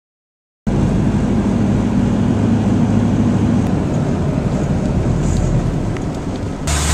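A vehicle engine running steadily, heard from on board as a loud low drone with road or wind rush. It starts abruptly under a second in and changes character near the end.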